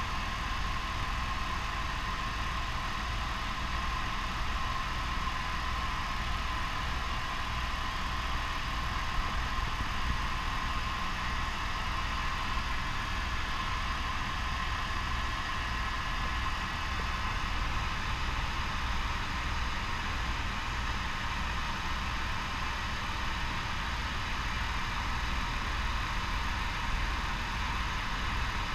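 Helicopter cabin noise in steady flight: the engine and main rotor drone on evenly, with a low, rapid rotor beat underneath and a steady whine on top.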